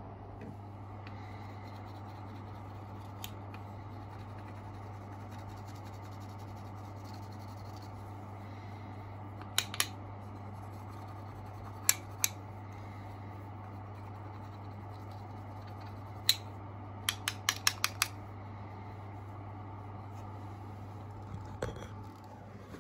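Scissors snipping metal foil tape in short, sharp cuts: two pairs of snips, a single one, then a quick run of about five, over a steady low hum.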